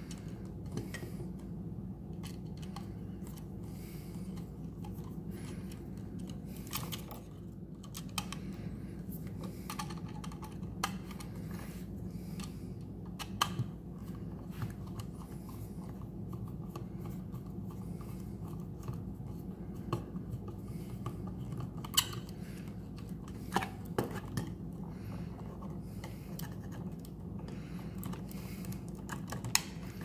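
Scattered small clicks and scrapes of a screwdriver turning the terminal screws on a plastic Wi-Fi wall switch as wires are fastened, with a few sharper clicks about two-thirds of the way in and near the end, over a steady low hum.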